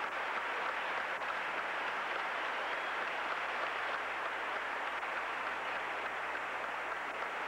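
An audience applauding steadily, with dense, unbroken clapping.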